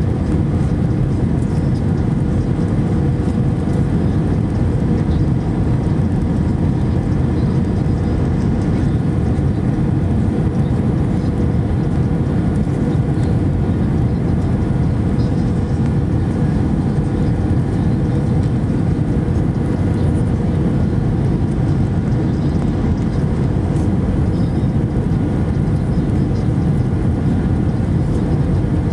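Steady cabin noise inside an Airbus A319-114 airliner on approach, a constant low rumble of airflow and its CFM56 engines with a faint steady hum.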